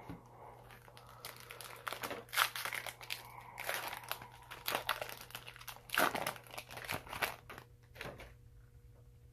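Foil wrapper of a Yu-Gi-Oh! booster pack crinkling and being torn open by hand, an irregular run of crackles, loudest about two and a half seconds in and again about six seconds in.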